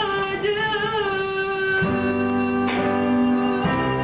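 A woman's singing voice holds a long final note with vibrato, stopping about two seconds in, as the instrumental accompaniment moves on into sustained closing chords.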